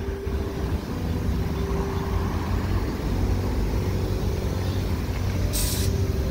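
Steady low mechanical rumble, with one short sharp hiss of air from the tyre valve about five and a half seconds in.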